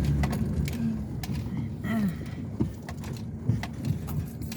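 Truck engine running with a steady low rumble inside the cab, with scattered clicks and rattles throughout.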